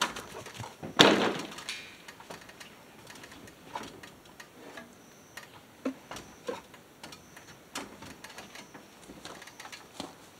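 Metal ladder clanking as it is gripped and climbed: one loud clank about a second in, then scattered light knocks and taps of feet and hands on the rungs.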